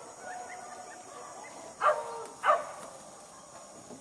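Hunting dog barking twice, about half a second apart, near the middle.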